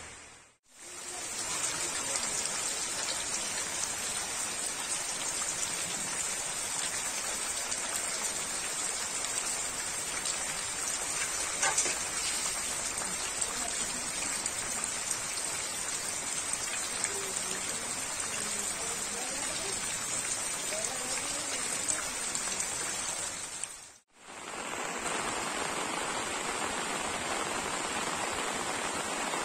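Heavy rain falling steadily on trees and foliage, an even dense hiss. It cuts out briefly just after the start and again about three-quarters of the way through, then resumes.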